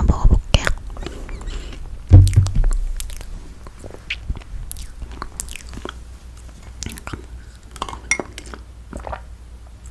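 Close-miked mouth sounds of chewing soft, sticky toasted marshmallow: scattered wet clicks and smacks. A loud low thump about two seconds in.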